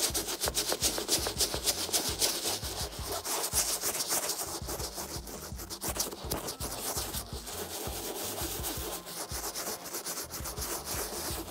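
Toothbrush scrubbing the wet, detergent-lathered fabric front of a snapback hat, a fast, continuous rasping of bristles over cloth to lift stains.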